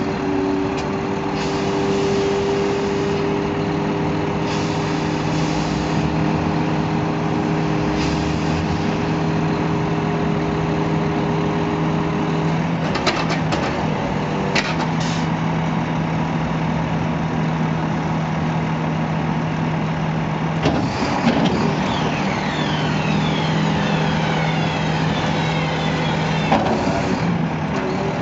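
Volvo FM 330 skip-loader truck running steadily while its hydraulic swing arms lift a loaded skip on chains up over the bed. The engine and hydraulic hum shifts pitch a couple of times as the arms move, with a few sharp metallic clanks about halfway through.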